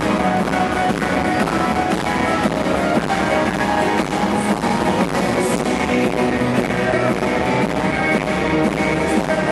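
Live rock band playing amplified music with guitars prominent, steady and loud throughout.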